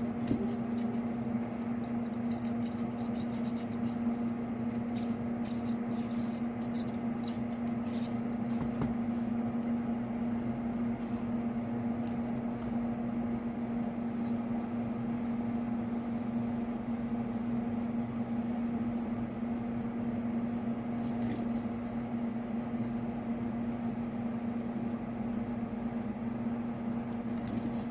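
Steady low hum throughout, with faint, scattered light scraping and ticking as a soldering iron tip is dragged along the rows of connector pins during drag soldering.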